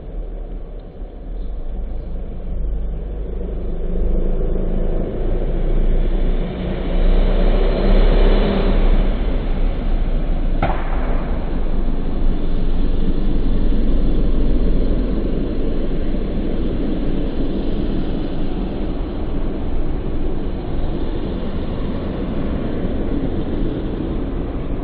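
Steady low rumbling outdoor noise that swells a quarter of the way in and eases off after the middle, with one brief sharp click near the middle.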